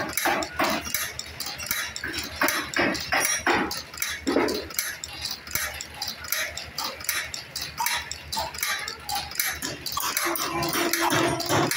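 Automatic side anchor chain-making machine running and forming wire into chain, clattering with rapid, regular clicks of its moving parts.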